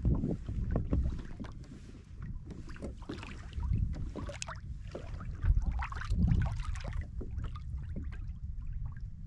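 Small waves slapping and gurgling irregularly against a kayak's hull, over a steady low rumble of wind on the microphone.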